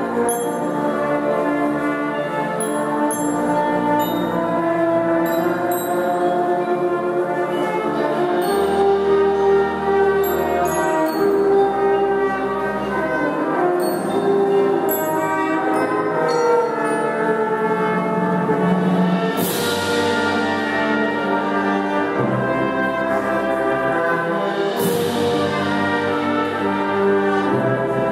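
Marching band of brass and percussion playing a slow concert piece: held brass chords over a deep bass line, with two cymbal crashes, about 19 and 25 seconds in.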